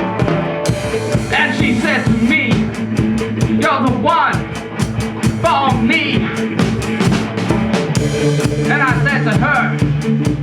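Rock band playing a song: a drum kit keeps a fast, steady beat under bass, with a wavering lead line above.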